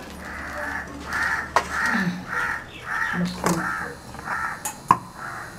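A crow cawing over and over, harsh calls about twice a second, with a few sharp clicks among them.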